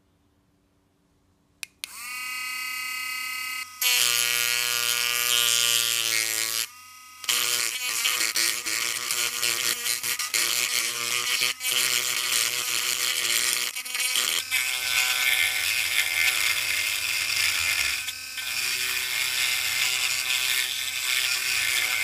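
Pen-style electric rotary tool with a grinding stone starting up with a rising whine about two seconds in, then grinding into the plastic shell of a game controller: a steady high motor whine with a rasping grind, dropping out briefly a few times.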